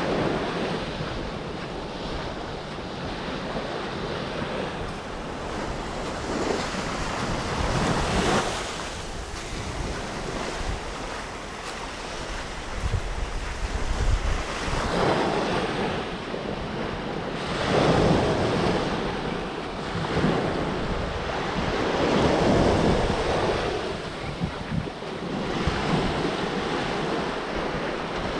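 Surf breaking on a sandy Gulf of Mexico beach, each wave swelling and washing in every few seconds, with wind buffeting the microphone.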